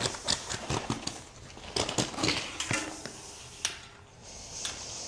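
Hands working a bicycle tire and inner tube off the wheel rim: irregular clicks, taps and scraping rustles.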